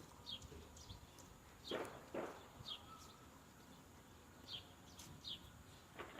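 Faint small-bird chirps: short, quickly falling calls repeated every second or so. Two soft noisy bursts come close together about two seconds in.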